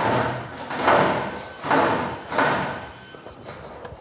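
Plastic fuel-line quick connector and rubber hose being forced and worked onto a diesel high-pressure fuel pump by a gloved hand: four scraping rubs about 0.7 s apart, then two small ticks near the end. The connector has not yet snapped home.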